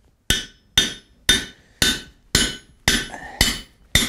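Hand hammer striking a steel punch held in a red-hot iron bar on the anvil, punching a hole over the pritchel hole: eight steady blows, about two a second, each with a short metallic ring.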